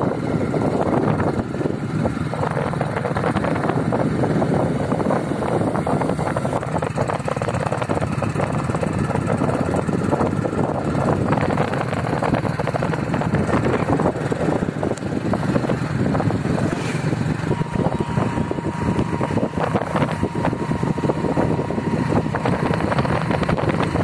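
A vehicle running steadily on the move, its engine noise mixed with wind buffeting the microphone. A faint steady whine joins in for the last several seconds.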